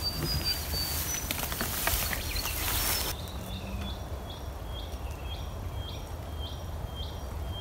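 Long grass swishing and rustling as a bicycle is pushed through it, cutting off sharply about three seconds in. After that, short high chirps repeat evenly about twice a second over a low wind rumble.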